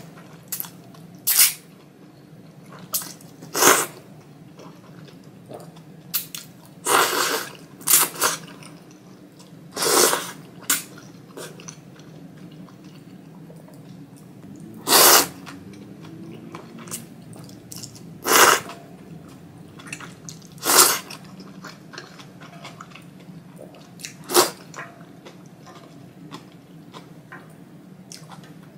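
Close-miked slurping of thick Jiro-style ramen noodles and soy-sauce broth from a spoon: short, loud slurps every few seconds, with quieter chewing in between.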